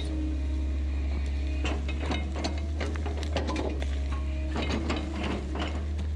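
Heavy machinery running with a steady low engine hum, with repeated short metallic clanks and knocks throughout.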